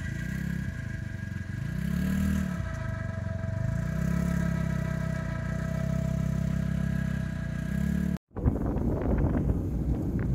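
Quad bike engine revving up and down under load with a steady whine over it, winching a stuck vehicle out of the mud. After a sudden cut near the end, wind rushes on the microphone while riding on a gravel road.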